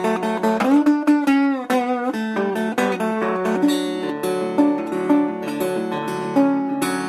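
Guitar music: plucked notes with a few sliding pitch glides in the first two seconds, then held notes over a low sustained tone, as in slide guitar playing.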